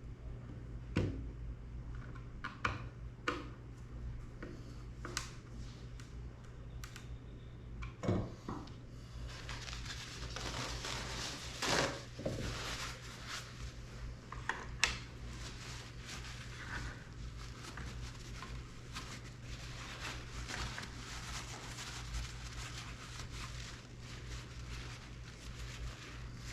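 Hands working at a bench on small drone parts: scattered clicks and taps, then from about ten seconds in a longer stretch of rubbing and rustling dotted with small clicks, over a steady low hum.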